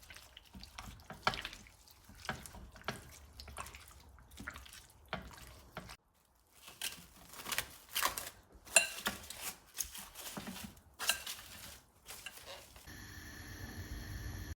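Kitchen prep sounds: irregular knocks and clinks with water dripping and splashing, as at a sink, broken by a short gap partway through. Near the end they give way to a steady hum.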